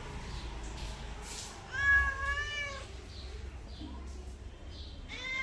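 Domestic cat meowing: one drawn-out meow about two seconds in, and another starting near the end.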